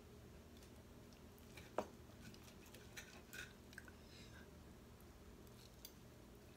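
Near silence with a few faint clicks of a fork and knife against a plate as food is cut, the sharpest about two seconds in.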